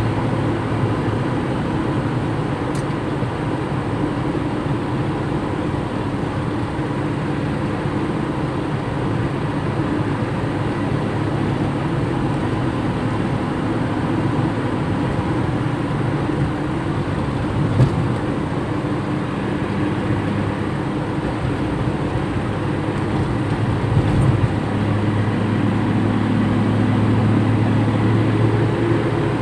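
Toyota Kijang driving along, a steady mix of engine and road noise with a couple of brief knocks; the engine gets louder near the end.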